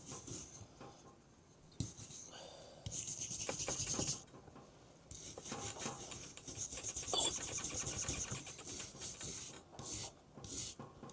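Wire brush scrubbing the steel head of a splitting maul in rapid back-and-forth strokes, in several spells broken by short pauses.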